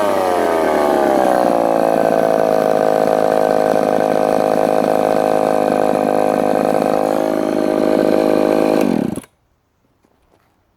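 Echo CS-302 30cc two-stroke chainsaw engine winding down from high revs over the first couple of seconds and settling to a steady run. It then stops abruptly about nine seconds in, leaving near silence.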